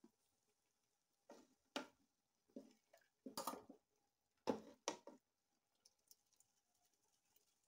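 Several short knocks and scrapes of kitchenware, a bowl and ladle handled at a large aluminium soup pot, bunched over a few seconds with the loudest about four and a half seconds in. A faint steady hum runs underneath.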